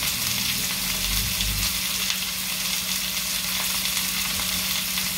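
Sliced squash frying in hot oil in a pan, sizzling steadily, with a low bump about a second in.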